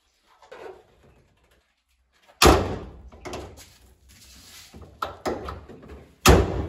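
Honda car's bonnet slammed shut twice: one loud bang about two and a half seconds in and another near the end. Lighter knocks and rattles come between the two.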